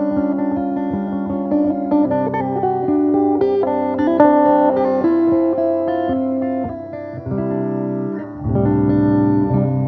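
Guitar playing plucked chords and melody notes that ring on over one another. A dip comes near the end, then a low bass note enters under the chords.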